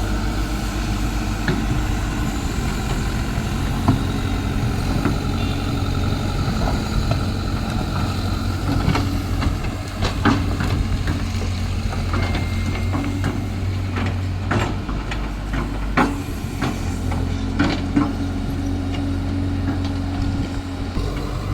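Caterpillar excavator's diesel engine running steadily, with sharp knocks scattered over it.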